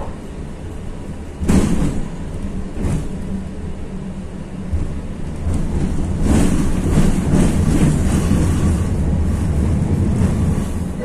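Running noise inside a 71-623-02 (KTM-23) tram rolling along the track: a steady low rumble of wheels on rails with a motor hum, two sharp knocks about a second and a half and three seconds in, and the rumble getting louder about six seconds in.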